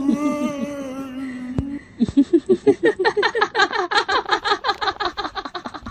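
A held music tone fades out over the first second or so. Then, about two seconds in, a long, rapid ha-ha-ha laugh starts, about five pulses a second, and fades away near the end.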